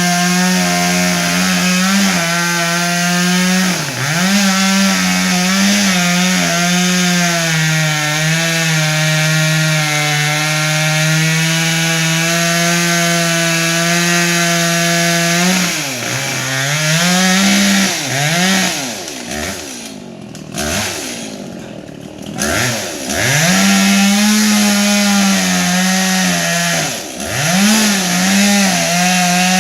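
Two-stroke chainsaw running at full throttle, cutting wood, its engine note held high and steady. Past the middle it drops off and is revved in short blips, then runs at full speed again.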